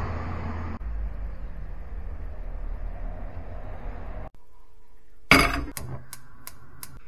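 Steady street background noise with a low rumble. Then a pan clanks down onto a gas hob, followed by the repeated clicking of the hob's spark igniter as the burner knob is turned, about two or three clicks a second.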